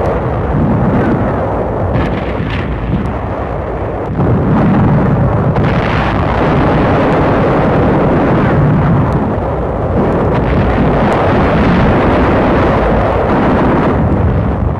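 Continuous battle noise: a dense rumble of explosions and artillery fire with a few sharp cracks of gunfire, growing louder about four seconds in.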